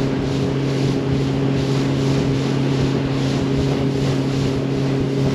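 Motorboat engine running at a steady speed, a constant low hum, with wind and water rushing past the boat.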